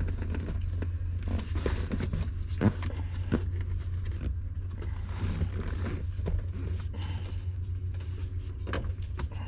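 Scattered clicks, taps and scrapes of hands working at a pickup truck's interior trim and wiring, over a steady low hum.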